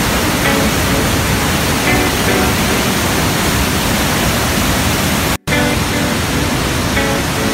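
Massive waterfall, Iguazu Falls, heard from close by: a loud, steady rush of falling water. It cuts out for an instant about five and a half seconds in, then comes straight back.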